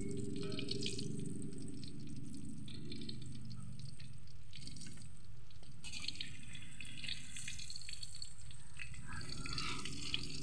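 Tofu frying in hot oil in a wok: a steady sizzle with fine crackles and spits.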